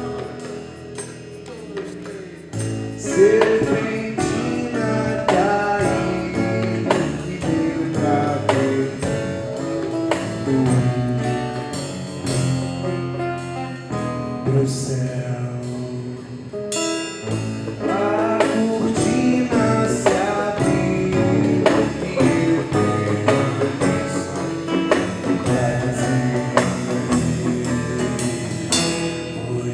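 Live band music: a man singing over instrumental accompaniment and drums. The fuller band sound comes in about two and a half seconds in, drops back for a few seconds in the middle and comes back in.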